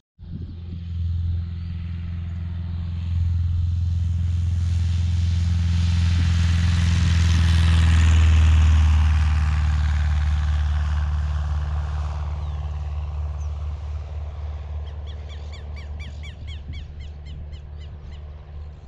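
Light high-wing single-engine plane at full power on its takeoff run: a piston engine and propeller drone that swells as it passes, peaks about eight seconds in with a slight drop in pitch, then fades as it climbs away. Short repeated chirps can be heard over it near the end.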